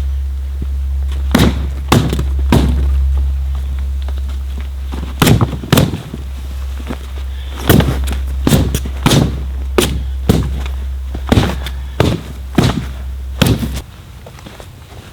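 A dozen or so sharp knocks and thumps at uneven intervals over a steady low hum; the hum stops abruptly near the end.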